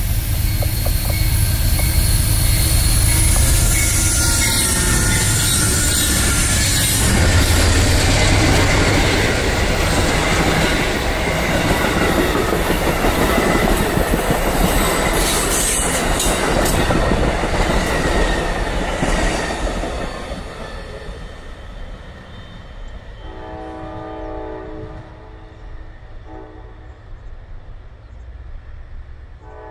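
Amtrak Silver Star passenger train, led by two GE P42DC diesel locomotives, accelerating past: engine noise and the rumble and rush of steel wheels on rail as the cars roll by, fading after about twenty seconds as the train moves away. Then a horn chord sounds for about four seconds, and starts again at the very end.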